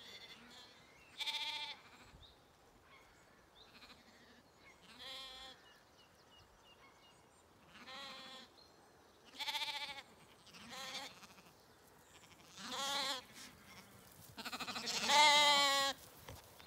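Zwartbles lambs bleating, about seven quavering bleats a few seconds apart from different lambs, the loudest and longest near the end as they come up to the fence.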